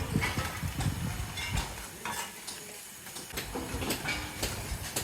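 Irregular clatter and scraping of hard objects being handled, in scattered knocks and clicks over a background hum.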